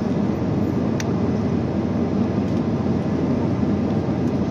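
Steady cabin noise of a jet airliner in flight, heard inside the cabin at a window seat over the wing: an even, low rush of engine and airflow noise that does not change.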